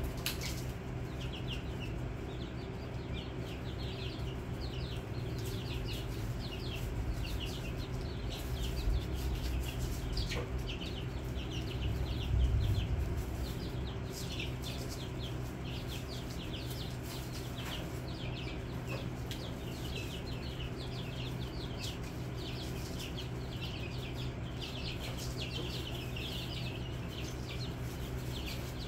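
Many young chicks peeping continuously, short quick chirps overlapping one another, over a steady low hum.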